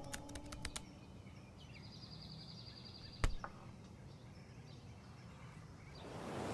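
Laptop keys clicking under a fading gong-like tone during the first second, then quiet outdoor ambience with a bird's rapid trill, a single sharp knock about three seconds in, and steady rushing noise swelling up near the end.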